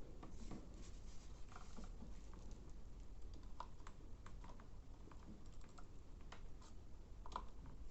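Faint, scattered light clicks and taps of hand soldering work on a circuit board, as the soldering iron and solder wire touch the board, over a faint low hum.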